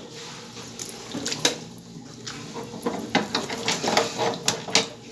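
Irregular clicks, taps and knocks of hand tools and parts being handled while working on a water heater's element terminals, over a faint background hiss.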